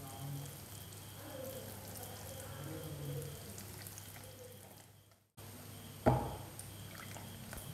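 A wire whisk stirring muffin batter in a glass bowl: soft, wet scraping and swishing. The sound drops out briefly a little after five seconds, and about six seconds in there is one sharp knock with a short ring.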